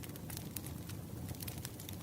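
Firewood burning, crackling with frequent irregular small pops and snaps over a low steady rumble.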